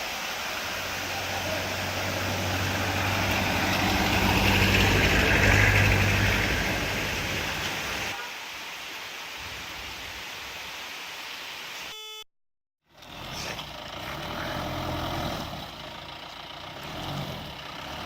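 Motor vehicle engine running on a road, a steady hum that grows louder then eases off. Near the middle the sound cuts out briefly and picks up again as a vehicle engine whose pitch rises and falls.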